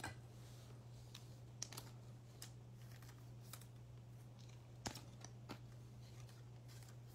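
Faint scattered clicks and light taps of trading cards being handled and flipped through in hand, over a steady low hum.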